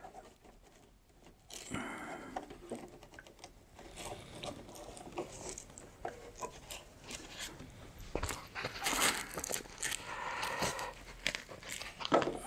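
Stiff camo nylon fabric and hook-and-loop patches being handled and shifted on a sewing machine bed: irregular rustling, scraping and crinkling with scattered light clicks.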